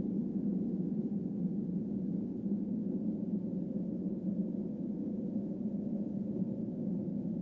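A steady low drone that holds level throughout, with no breaks or knocks.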